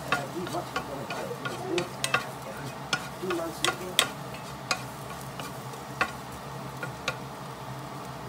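Minced garlic frying in oil in a nonstick pan, stirred with a wooden spatula: a light steady sizzle with irregular sharp clicks.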